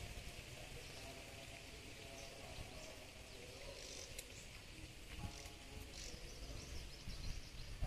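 Outdoor woodland ambience: a steady high insect drone with scattered faint bird chirps over a low rumble.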